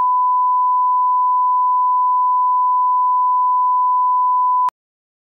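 Television reference test tone of the kind played with SMPTE colour bars: one loud, steady, pure beep at a single pitch that cuts off suddenly near the end.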